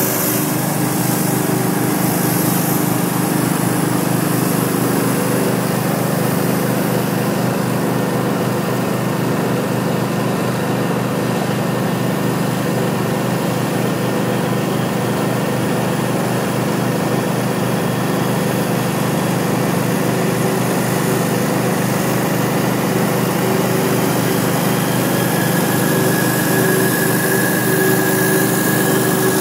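Hot-water pressure washer's engine running steadily at full speed, with the hiss of hot water spraying from a flat surface cleaner onto concrete.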